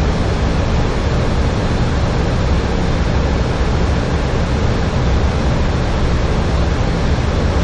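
Flight deck noise of a Boeing 737-800 in flight: a loud, steady rush of airflow over the cockpit with a low rumble underneath, heard from inside the cockpit.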